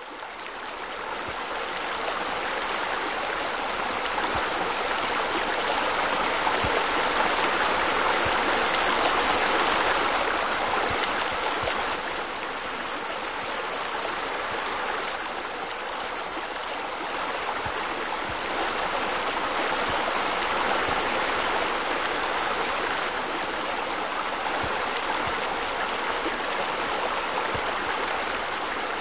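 Steady rush of falling water, a waterfall splashing into a pool. It fades in at the start and is a little louder in the first third.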